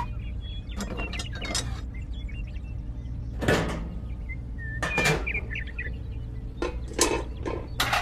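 Light knocks and clatters from handling a small handmade toy concrete mixer model, several separate strikes, over a steady low hum.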